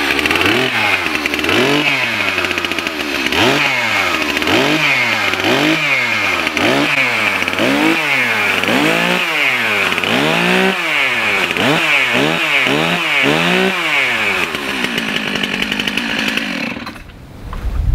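Stihl two-stroke chainsaw revved hard over and over, its pitch rising and falling about once a second, then settling to a steady idle and stopping near the end.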